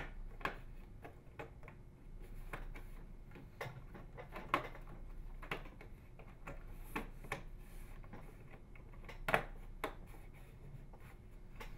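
Plastic inner door trim of a Frigidaire microwave oven door being pressed into place by hand, its retaining clips snapping in with a series of scattered sharp clicks, the loudest about nine seconds in.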